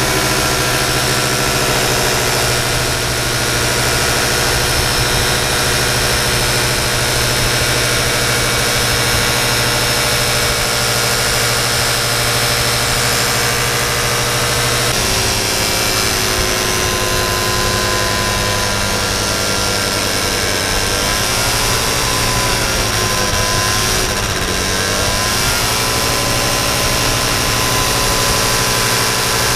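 Paramotor engine and propeller running steadily in flight. The engine note steps down slightly about halfway through, then its pitch wavers up and down for a few seconds before settling again.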